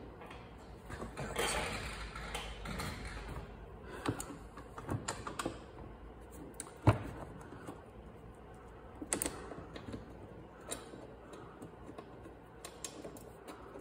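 Scattered small clicks and taps of hands seating the plastic dash panel of a Ryobi zero-turn mower and fitting its bolts, with one sharper knock about seven seconds in.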